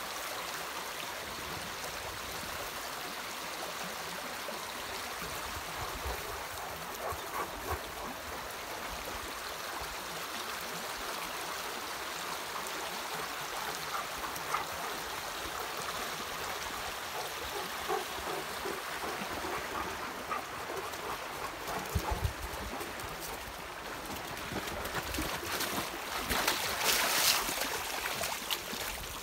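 Steady rush of a shallow stream, with splashing near the end as Newfoundland dogs wade into the water.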